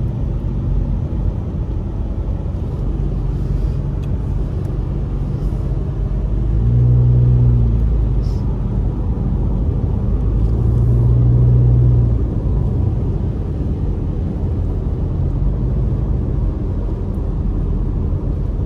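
Car driving on a wet road, heard from inside the cabin: a steady low rumble of engine and tyres. Twice near the middle a deeper hum swells up for about two seconds each time.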